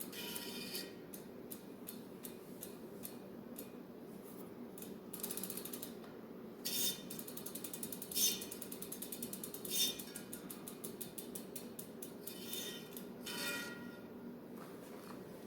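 Bicycle hub freewheel pawls ticking in an even, slowing run as the wheel spins freely, with several brief louder scraping sounds in between.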